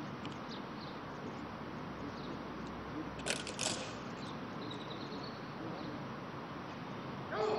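Steady open-air ambience of a military ceremony broadcast, with two sharp clacks about three seconds in, a fraction of a second apart: a cadet company handling its rifles in unison.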